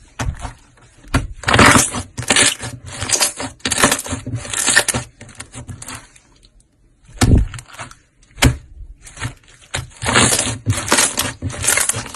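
Slime being squeezed and worked by hand, making repeated crackling, crunching bursts that come in quick irregular runs, with a short pause a little after halfway.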